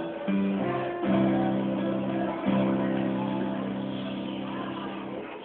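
Acoustic guitar music: chords struck and left to ring, changing a few times. The last chord is struck a couple of seconds in and fades slowly.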